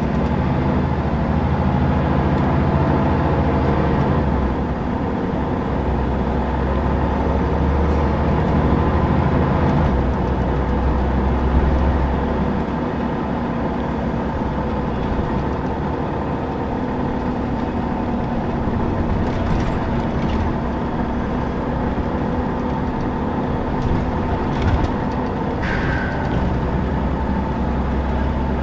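Scania L94UB city bus heard from inside the cabin while driving, with diesel engine drone, ZF automatic drivetrain and road noise. The engine's low drone swells and eases a couple of times, and there are a few light rattles and a brief squeak near the end.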